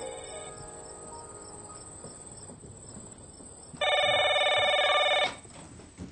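Crickets chirping steadily. About four seconds in, a telephone rings once for about a second and a half, louder than anything else.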